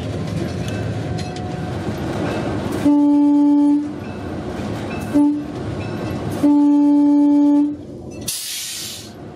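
Horn of an EMD GP9 diesel locomotive sounded for a grade crossing: a long blast, a short one and another long one, over the steady rumble of the locomotive running along the track. A short hiss follows near the end.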